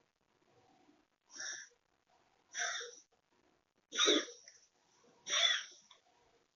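Siberian cat making a run of sharp, breathy nasal bursts, five of them about a second or so apart, the loudest near the middle: a sneezing or reverse-sneezing fit.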